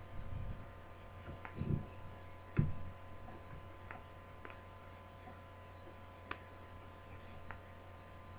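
Scattered light clicks and a couple of soft knocks from plastic laptop lid parts being handled during disassembly, over a steady electrical hum. The loudest knock comes about two and a half seconds in.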